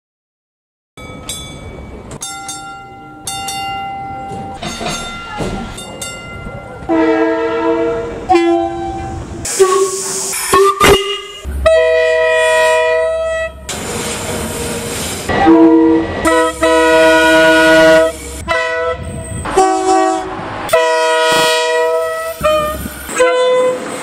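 Diesel locomotive air horns sounding a series of blasts, each a chord of several steady notes, with the horns changing abruptly from one blast to the next. The horns start about a second in, higher and thinner at first, then fuller and louder.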